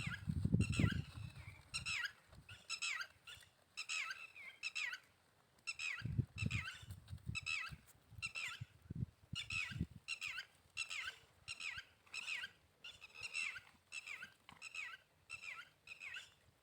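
A run of short, high-pitched chirping calls repeating about twice a second, with low thuds near the start, around six seconds in and around nine seconds in.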